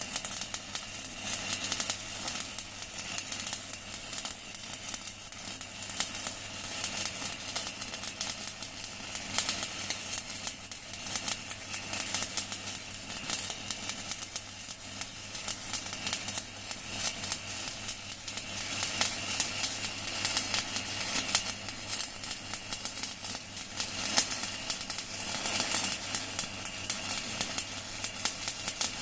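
Stick (MMA) welding arc crackling steadily as a 4 mm UONI electrode burns from an inverter welder set to about 160 A.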